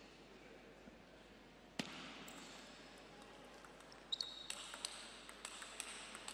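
Table tennis rally: the ball clicks sharply off the bats and the table. There is a single click about two seconds in, then from about four seconds a quick run of clicks, a few each second.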